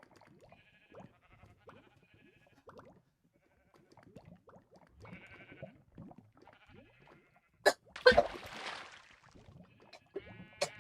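A girl coughing: one loud, harsh cough about eight seconds in, with faint short voice-like sounds before it.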